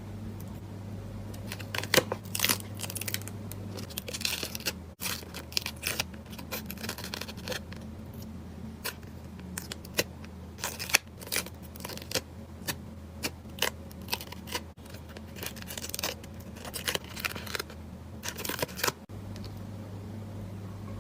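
Paper-craft handling for a journal collage: scissors snipping and paper and tape being torn and handled in many short sharp bursts, over a low steady hum.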